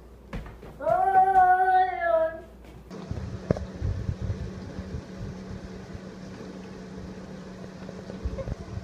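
A cat gives one long, drawn-out meow, starting about a second in. After that there is only a steady low hum with a few faint clicks.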